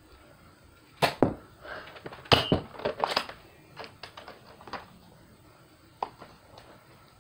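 Sharp plastic clacks and snaps from a Nerf foam-dart blaster being handled. Two loud clacks come about a second in and a quick cluster follows about two to three seconds in, then fainter ticks and one more clack near the end.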